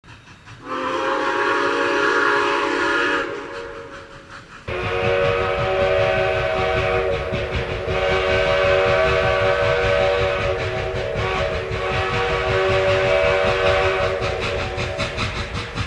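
Train air horn sounding a chord of several notes, twice: a blast of about two and a half seconds, then a long blast held for about ten seconds over a low rumble.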